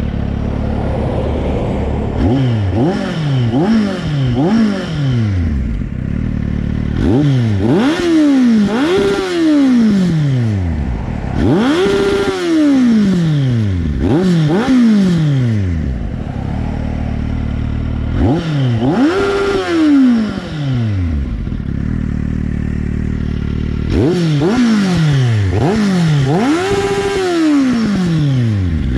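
Kawasaki Z750's inline-four engine breathing through an Arrow slip-on exhaust, idling and blipped about a dozen times, each rev rising sharply and falling back, in groups with short stretches of idle between.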